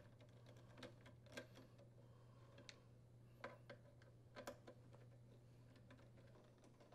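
Near silence with a steady low hum and a few faint, scattered clicks from a Torx screwdriver unthreading the screws of a dryer door's latch plate.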